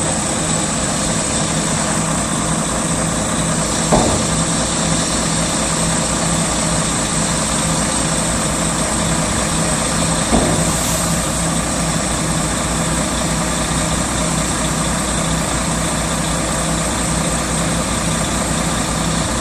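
Three-axle dump truck's diesel engine running at a steady idle, powering the hydraulics as the front-mounted tipping cylinder lowers the dump body. Two short clunks, about 4 and 10 seconds in.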